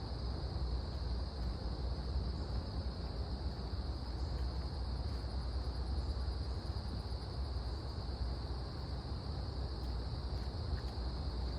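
Steady high-pitched insect chorus from crickets or katydids, holding one even pitch, over a constant low rumble.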